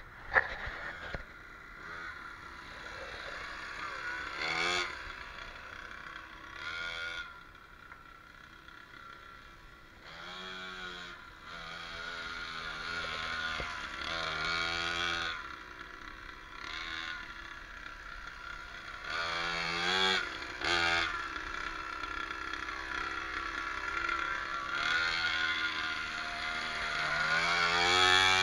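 Mini cross dirt bike's small engine being ridden, revving up and dropping back over and over, its pitch rising with each burst of throttle. A sharp knock comes right at the start.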